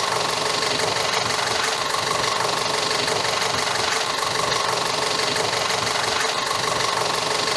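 2014 Audi Q5's 2.0 TFSI turbocharged four-cylinder engine idling steadily, running like new now that the rear main seal vacuum leak behind its misfires and low idle has been fixed.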